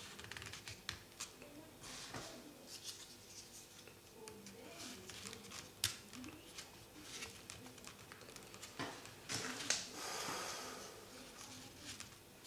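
Folded paper triangle pieces of a 3D origami model rustling and clicking as they are pushed by hand into place around the structure. There are many small taps and crinkles, and a longer rustle about nine seconds in.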